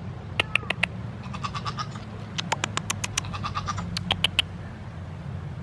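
A bird chattering in quick runs of short, harsh clicking calls, over a steady low hum.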